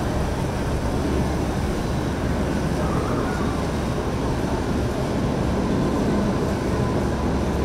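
Boat engines running steadily at low speed as a motor yacht passes close by: an even, continuous low rumble with no change in level.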